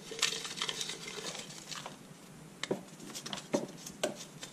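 Small paper number slips rattling inside a container as it is shaken, followed by a few separate clicks and rustles.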